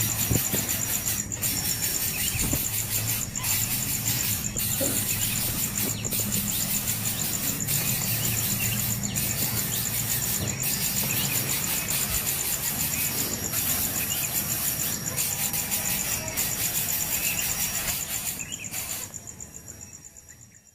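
Nestling birds giving shrill, continuous begging calls for food, fading out near the end.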